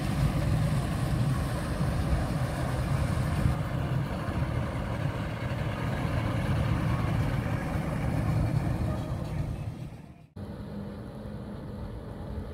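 Outboard motor of a passing center-console fishing boat running at cruising speed, a steady low engine drone. About ten seconds in it cuts off abruptly, giving way to a quieter, steady engine hum from a distant boat.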